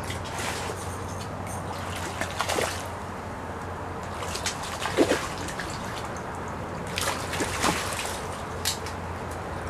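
Water splashing in short, irregular bursts, loudest about five seconds in: a hooked carp thrashing at the surface as it is played in and netted.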